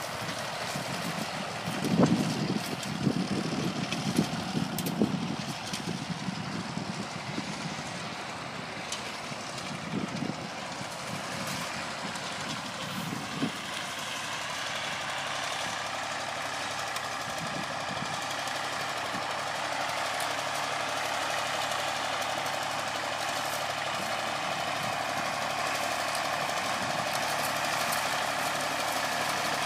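Diesel engines of two vintage tractors working, a Massey Ferguson 35X mowing and a Fordson Super Dexta pulling a hay spreader, running steadily. A few low thuds in the first half, and the engine grows louder over the second half.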